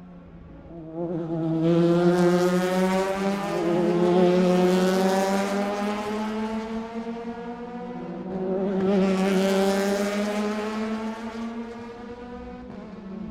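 A group of Indy race cars passing at speed, engines running at high revs, several engine notes overlapping. The sound swells about a second and a half in, eases, then a second wave swells and fades around the middle to late part.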